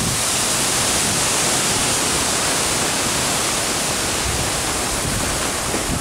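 Strong wind blowing, a steady rushing hiss with a low rumble of wind on the microphone beneath it.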